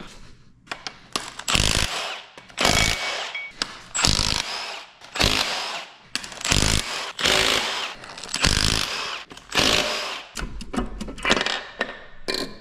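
Impact gun running in repeated short bursts, about eight in all, driving out bolts on the engine block.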